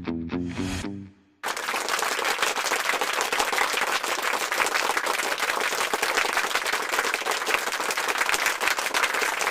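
Background music fades out about a second in; then a crowd applauding, steady dense clapping that runs on.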